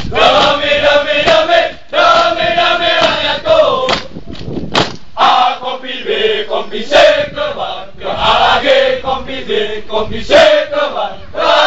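A company of Indonesian infantry soldiers chanting a military yel-yel in unison, in short shouted phrases with brief breaks between them, with sharp hand claps.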